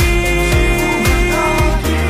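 Pop ballad: a male singer holds the last note of a sung line for about a second and a half over a steady drum beat and band, then the accompaniment carries on alone.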